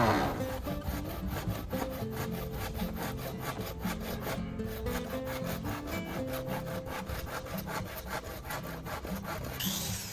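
Saw cutting through bamboo in quick, even strokes, about four or five a second, over background music.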